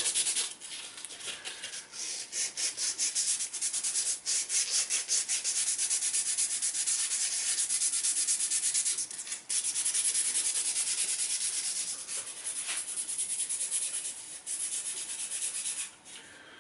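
Fine sandpaper rubbed by hand in quick back-and-forth strokes over cured epoxy on a carbon-fibre-wrapped fishing rod repair, smoothing the surface and edges. The strokes pause briefly about nine seconds in and die away near the end.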